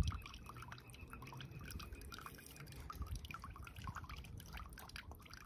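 Faint, irregular drips and small splashes of water in a shallow inflatable paddling pool as a small wet dog stands and shifts about in it.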